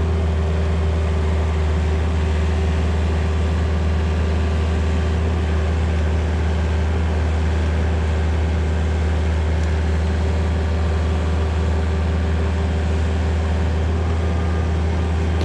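Kubota excavator's diesel engine running at a steady speed, a constant low drone.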